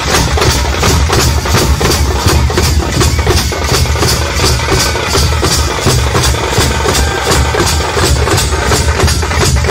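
Loud percussion music: drums beating a fast, steady rhythm of about three to four strokes a second over a heavy low boom.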